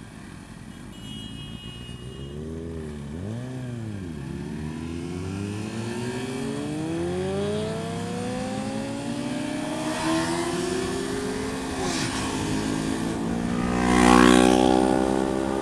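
Motorcycle engine revving and accelerating: a short blip that rises and falls about three seconds in, then a pitch that climbs steadily for several seconds, dips briefly near twelve seconds and climbs again. A louder rush of noise swells up near the end.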